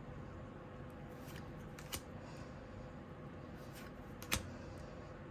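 Tarot cards being flipped through by hand: a few sharp clicks of card stock, the loudest about four seconds in, over a faint steady hum.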